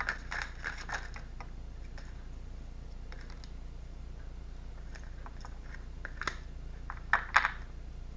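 Light clicks and taps from hands handling small objects on a table, in a cluster at the start and again around six to seven and a half seconds in, over a steady low hum.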